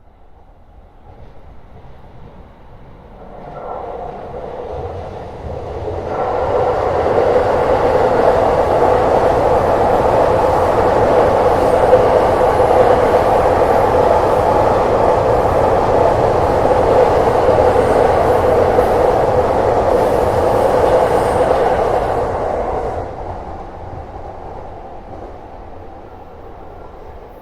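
A train passing. It builds up as it approaches over the first several seconds, runs loud and steady with the rumble of wheels on rail for about fifteen seconds, then fades as it moves away.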